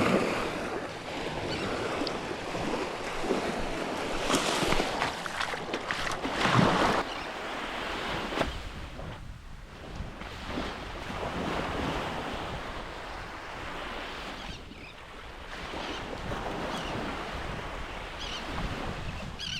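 Surf breaking on a sandy beach, its wash swelling and easing, with wind buffeting the microphone.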